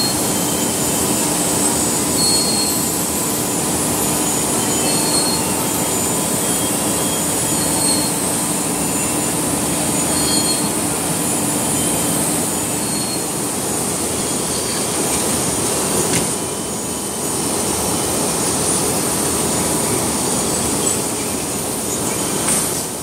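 Veneer rotary clipper and its conveyor line running: a steady mechanical din of motors and rollers with a high hiss and a faint short squeak every two seconds or so. The noise drops slightly about two-thirds of the way through.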